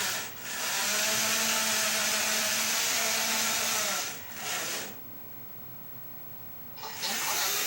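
Electric motor of a toy Mark VII monorail, fitted with a hobby electronic speed control, running with a steady whine and hiss. It cuts out about four seconds in, runs again briefly, then stops for about two seconds before starting up again near the end, as the trigger is let off and squeezed.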